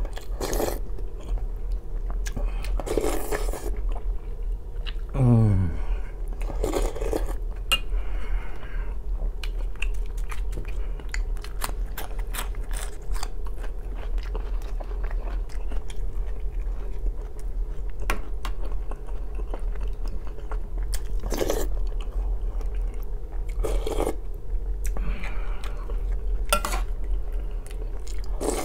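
Close-up eating sounds: borscht slurped off a spoon, chewing and biting into black bread, with the odd spoon sound against an aluminium bowl. About five seconds in a short throaty vocal sound falls in pitch.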